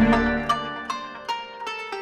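Background music: the heavy beat drops out and a plucked-string melody carries on over a fading bass.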